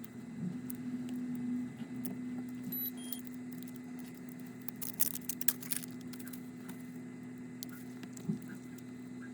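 Light clicks and scratches of small parts and tools being handled during a smartphone repair, with a cluster of sharp clicks about five seconds in, over a steady low hum.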